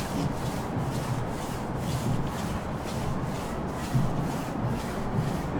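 Footsteps crunching in snow at a walking pace, about two to three steps a second, over the steady hum of heavy traffic on a nearby avenue.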